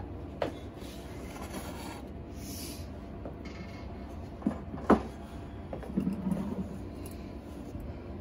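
Kitchenware being handled: a few sharp knocks and clicks, the loudest about five seconds in, then a short cluster of softer handling noises around six seconds, over a steady low hum.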